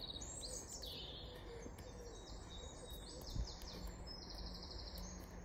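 Small birds singing, with quick runs of repeated chirps and trills, over a steady low background noise. There is one short soft thump about three and a half seconds in.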